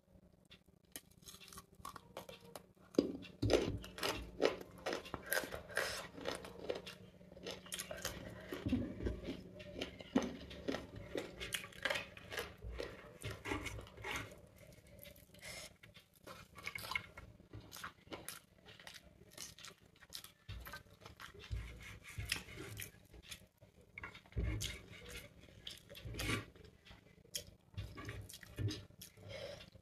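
Close-up eating sounds: chewing and mouth sounds while eating chicken biryani by hand, with fingers picking rice and chicken off a plate in many small irregular clicks and scrapes.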